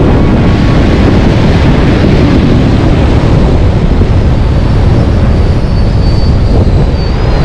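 Strong wind buffeting the microphone in a loud, steady low rumble, with surf washing up the beach underneath; a faint high whistle comes in near the end.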